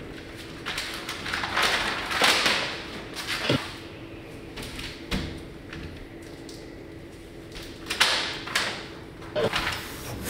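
Hands against a glass shop window: soft rustling swells and a few light taps and knocks on the pane, over a faint steady hum.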